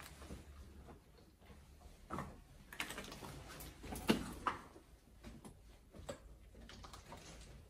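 Irregular footsteps and scuffs on loose debris, with a few sharper knocks, the loudest about four seconds in.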